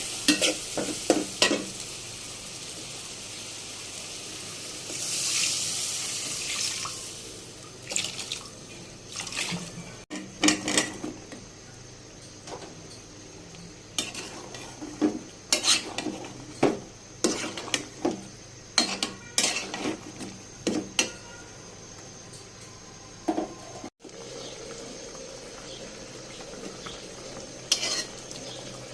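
A metal spatula clinking and scraping against a cooking pan in irregular knocks while food is stirred, over a steady hiss of frying. A louder hiss swells for a couple of seconds about five seconds in.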